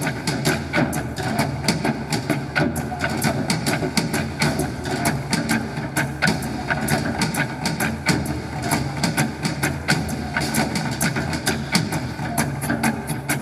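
Music with a fast, dense percussive beat.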